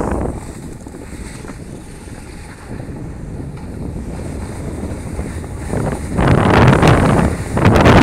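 Wind blasting across a phone's microphone during a fast downhill ski run: a steady low rush that turns into loud, ragged gusts from about six seconds in.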